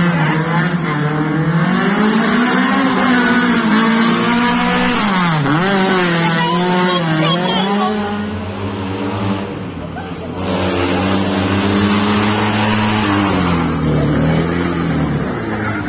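Rally car engines revving hard, the pitch climbing and dropping again and again with gear changes and lifting off. Loudness dips briefly about ten seconds in, then another car's engine runs at a steadier pitch.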